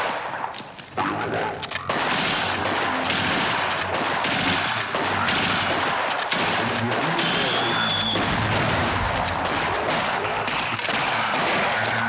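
Sustained gunfire from a squad of soldiers' submachine guns and rifles, rapid shots overlapping into continuous volleys, a little sparser in the first second or two. A short high tone sounds about seven seconds in.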